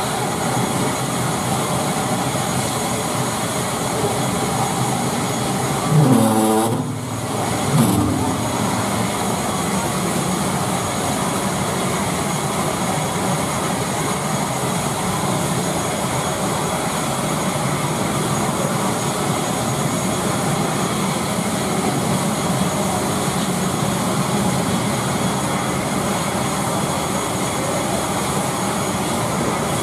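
Steady drone and whine of a parked ATR 72 turboprop's engine running at the stand, its near-side propeller standing still. There is a short disturbance with a brief dip about six to eight seconds in.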